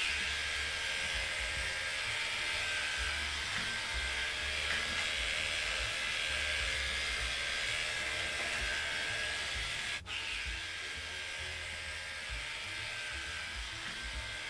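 Heiniger electric dog clipper running steadily as its blade cuts through a Hungarian Puli's dense matted coat close to the skin, with a momentary break about ten seconds in.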